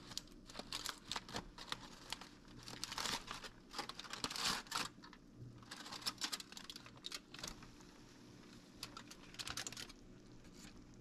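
Aluminium foil crinkling in short irregular bursts as hands pull open a hot foil packet of baked fish.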